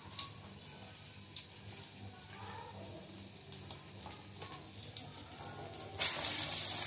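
Faint, scattered crackles of dry breadcrumbs as a breaded chicken cutlet is pressed into them, then about six seconds in a sudden loud sizzle of hot frying oil as the cutlet goes into the pan.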